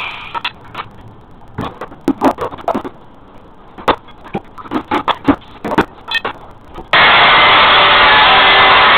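Scattered sharp knocks and cracks, like hard material being handled and struck, then about seven seconds in a loud steady noise starts abruptly.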